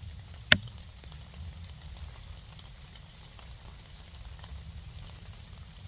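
Quiet woodland ambience: a low rumble with faint, light patter, broken about half a second in by a single sharp click, the loudest sound.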